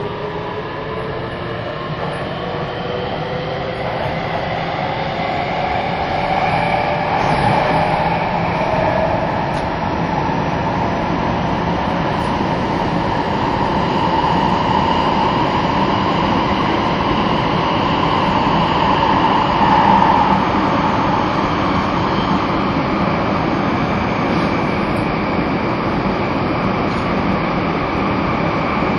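Nagoya Subway Sakura-dōri Line 6050 series electric train running through its tunnel. The motor whine rises in pitch over the first several seconds as the train gathers speed, then gives way to steady running noise.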